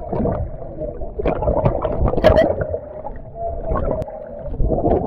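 Heard underwater, so it is muffled: a dense gurgle of rising air bubbles from the helmet divers' air supply. Through the middle runs a steady hum.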